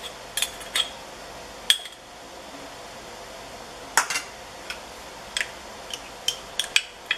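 Metal spoon clinking and tapping against a bowl as minced garlic is scraped onto ground chicken: scattered sharp clinks, a few at first, a pause from about two to four seconds in, then clinks coming more often.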